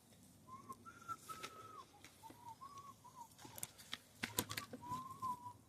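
A slow tune whistled in seven or so short, arched notes, some held longer than others. Sharp clicks and scrapes of hands working in the soil come in over the second half.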